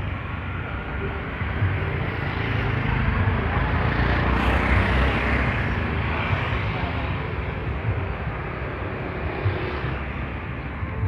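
Street traffic heard while moving along a narrow city street: a steady low rumble with wind buffeting the microphone, swelling to a louder rush about four to six seconds in.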